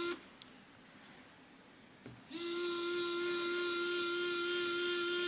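Linear actuator's small DC gear motor running with a steady whine, stopping just after the start, then starting up again a little over two seconds in.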